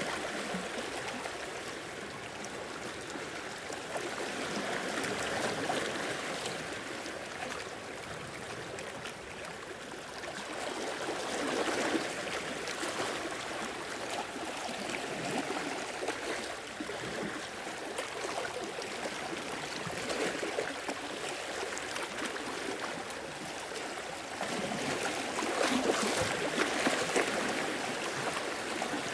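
Sea waves washing in and draining back over the shore in irregular surges that swell and fade, with stronger surges about twelve seconds in and again near the end.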